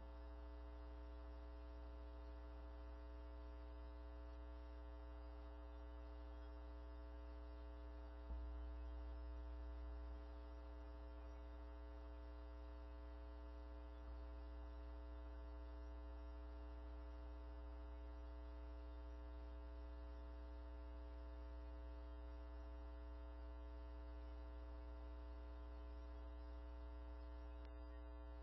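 Steady electrical mains hum with a buzzy stack of even tones above it and nothing else, briefly a little louder for about two seconds about a third of the way in.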